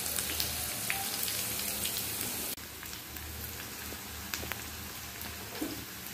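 Batter-coated okra pieces deep-frying in hot oil in a kadai: a steady sizzle with scattered small pops. It steps down a little in loudness about two and a half seconds in.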